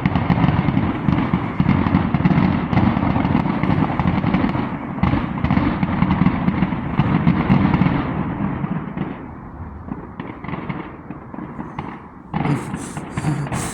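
Consumer fireworks and firecrackers going off in a dense, continuous barrage of crackling pops, thinning out after about eight seconds, then a fresh burst of sharper crackle near the end.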